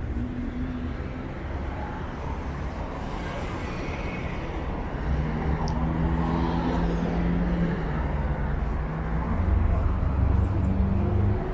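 City street traffic: cars and other vehicles driving past in a steady wash of engine and tyre noise, with an engine hum coming in about halfway and getting louder near the end.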